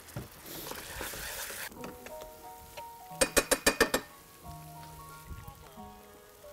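Peanut satay sauce sizzling in a frying pan for the first second and a half, then background music with held notes comes in. About three seconds in there is a quick run of about eight sharp clicks.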